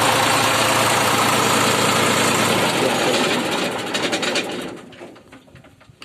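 Diesel engine of an Aquarius concrete pump running steadily, then shut down from the control panel about two and a half seconds in. It winds down with its firing strokes slowing and separating, and dies away by about five seconds in.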